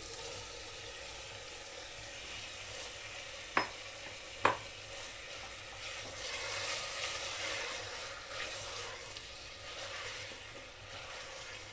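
Bottle gourd and potato pieces sizzling in masala in an open aluminium pressure cooker as a spatula stirs them. Two sharp knocks come about three and a half and four and a half seconds in.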